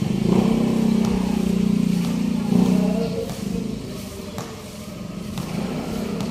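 A motor vehicle engine running, loudest in the first three seconds, then fading and rising again near the end.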